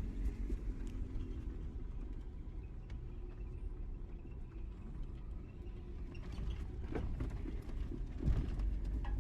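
Off-road vehicle crawling down a steep rocky trail, heard from inside the cab: a steady low rumble from engine and tyres, with a couple of short knocks near the end.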